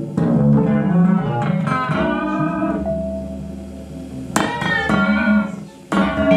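Improvised electric guitar played through a pedalboard of effects: plucked notes and chords that ring out and fade, one note held in the middle, then two hard-struck chords in the second half.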